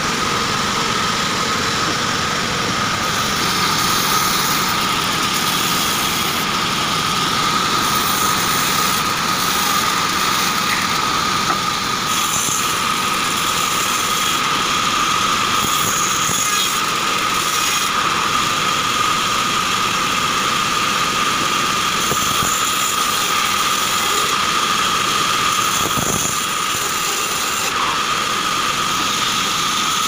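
Band saw running steadily with a high, even whine, its blade sawing short acacia logs into boards.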